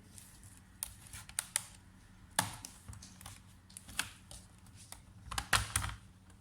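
Irregular plastic clicks and taps from handling a laptop, a few louder knocks among them about two and a half seconds in and again near the end.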